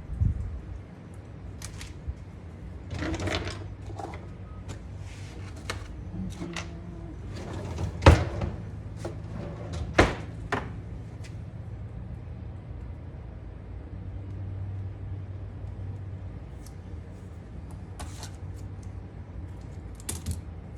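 Hand work with tools and small parts: scattered clicks, knocks and rustling, with two sharp knocks about eight and ten seconds in, over a low steady hum.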